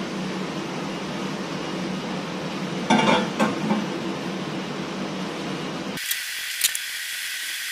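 Steady background hiss and hum, with a brief clatter about three seconds in as a bowl and knife are set down on the counter. About six seconds in the hum drops away abruptly, leaving a thinner hiss.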